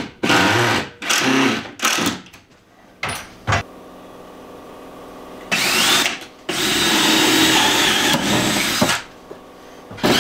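Cordless drill driving screws to fasten an upper wooden cabinet, running in several short bursts and then in one longer run of about two and a half seconds.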